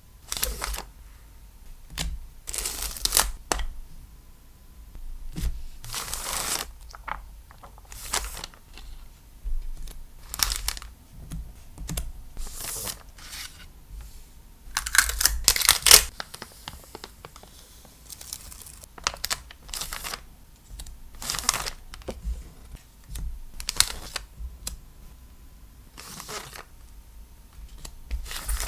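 Packaging being handled and opened: irregular bursts of rustling, crinkling and tearing, each about a second long, with soft clicks and taps between them.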